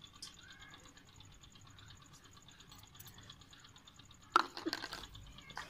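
Quiet room tone with a faint, rapid, even ticking, then about four seconds in a short cluster of knocks and clatter as a spice jar and a plate are handled at the mixing tray.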